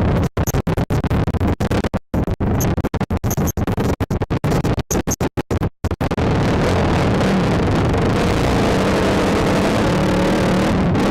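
ATV engine running under wind rush on a helmet-mounted camera. Through the first half the sound keeps cutting out for split seconds, a stuttering dropout, then runs on steadily with the engine pitch rising slightly near the end.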